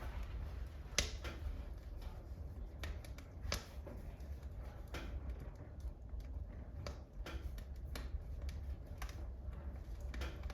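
Wood fire in a wood-burning stove crackling, with irregular sharp pops, the loudest about a second in, over a low steady rumble.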